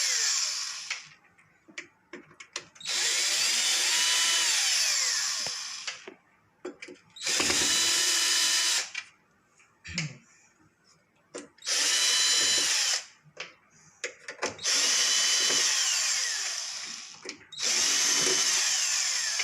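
Power drill-driver run in six separate bursts of one to three seconds, its pitch rising and falling within each as it backs screws out of the washing machine's cover one after another. Small clicks and taps come between the runs.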